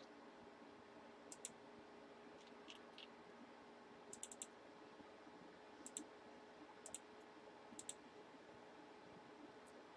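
Near silence broken by faint, sharp clicks, often in pairs or small clusters, every second or so, over a faint steady hum.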